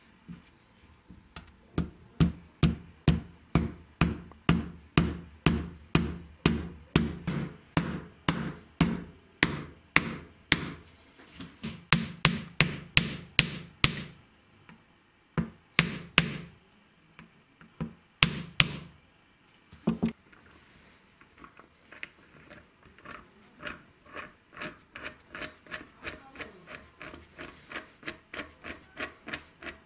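Hammer tapping a pin punch to drive a pin into a small steel vise's jaw: sharp metal-on-metal strikes about twice a second for the first half, then a few more hard blows after a short pause. In the last third, softer, quicker clicking as the vise's threaded screw is worked into the body.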